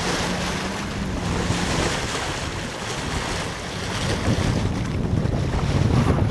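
Wind buffeting the microphone over the wash of choppy water along the hull of a sailing yacht under way.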